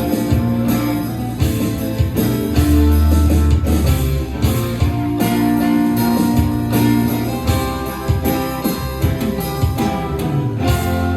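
A small band of guitars, bass guitar and drums playing an instrumental outro with no singing, with frequent drum and cymbal hits; near the end it lands on one held chord that rings on.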